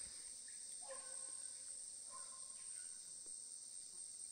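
Steady high-pitched insect chorus of crickets and cicadas in tropical forest, with a few faint, distant calls from hunting dogs baying as they work through the woods.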